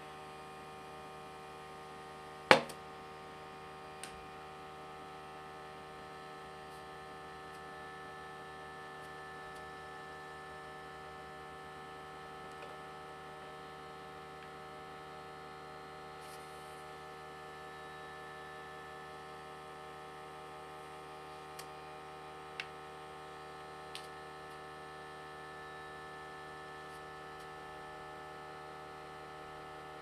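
Steady electrical hum with a few sharp clicks, the loudest about two and a half seconds in and several fainter ones about twenty-two to twenty-four seconds in.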